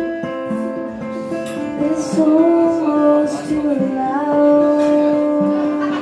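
A woman singing live with a strummed acoustic guitar, holding one long note over the last couple of seconds.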